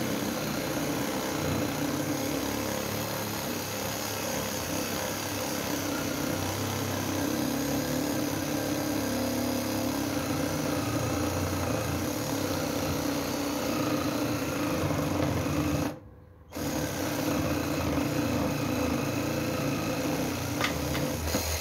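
Cordless battery-powered reciprocating saw sawing through a wooden log, its motor and blade running steadily. It stops for about half a second near three-quarters of the way through, then starts again.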